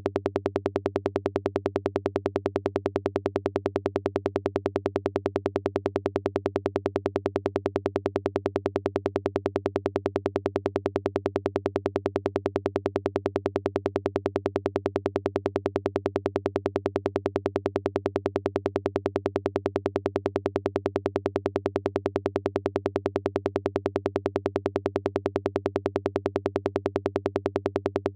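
Software modular synthesizer patch playing a fast, even stream of short electronic pulses over steady low tones, unchanging throughout: a psytrance-style synth sound effect.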